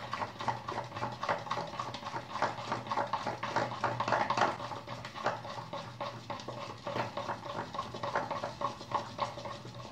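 Dosa batter being beaten by hand with a steel spoon in a steel bowl: a quick, continuous run of wet spoon strokes clicking and scraping against the bowl, the hand-beating that makes the batter fluffy.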